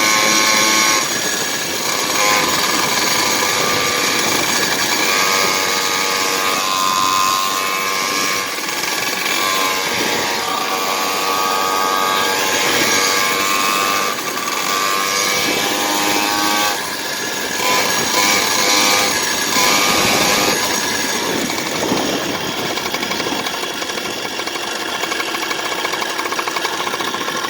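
Two-stroke Stihl MS460 chainsaw engine driving a motorized bicycle under way. It runs hard, its note rising and falling as the throttle changes, over a steady rush of noise.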